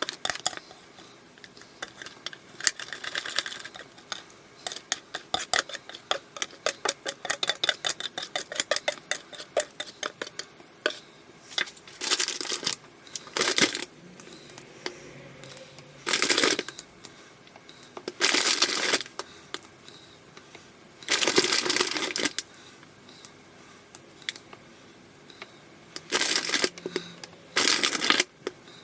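A kitchen utensil clinking against a bowl in quick repeated taps for several seconds, as in mixing batter by hand. This is followed by several separate longer scraping sounds, each lasting up to about a second.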